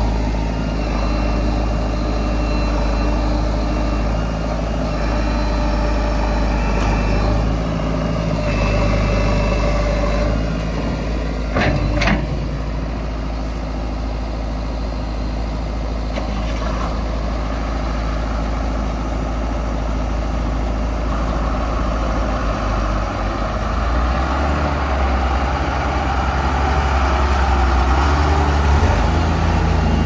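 Heavy diesel engines of a backhoe loader and a tipper truck running at idle. A brief sharp sound comes about twelve seconds in. Over the last several seconds the engine sound grows louder and deeper.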